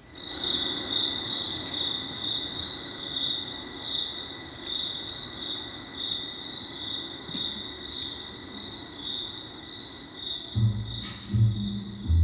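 Opening of a color guard show's recorded soundtrack: a steady, high, pulsing chirr like crickets that starts abruptly, then a low, regular drum beat comes in about ten and a half seconds in.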